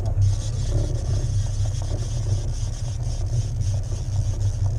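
Fishing boat's motor running at a steady low drone.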